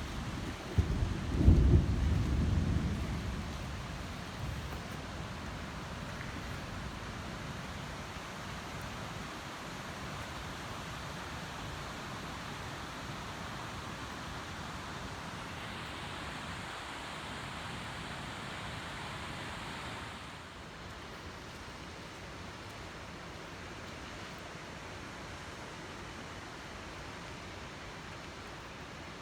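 Rainstorm: a deep low rumble with peaks in the first few seconds, then a steady hiss of rain that drops slightly about twenty seconds in.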